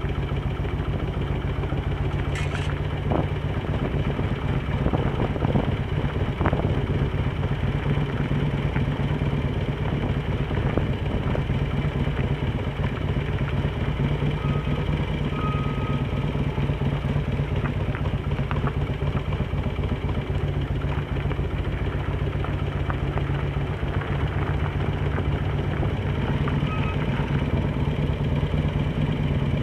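Cruiser motorcycle's engine running steadily as the bike rolls slowly at low speed, with a few faint clicks over it.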